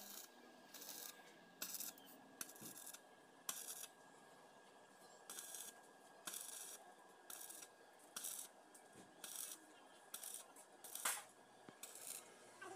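Stick arc welder tack-welding the e-rickshaw's steel body to its chassis: many short bursts of arc noise, one or two a second, with a pause of a second or so near the middle. A faint steady high tone runs underneath.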